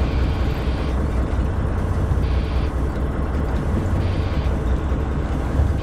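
A boat's engine running steadily at low revs, a continuous low rumble, with wind and sea noise on top.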